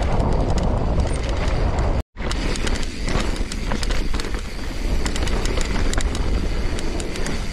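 Mountain bike riding down a dirt trail: wind rushing over the microphone and tyres running over loose dirt, with a constant patter of clicks and rattles from the bike over the bumps. The sound drops out for an instant about two seconds in.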